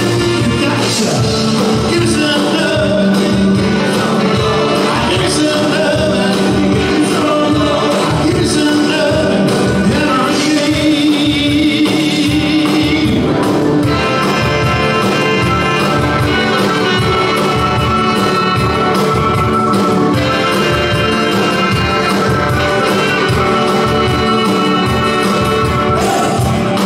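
Live band playing a song with a steady beat.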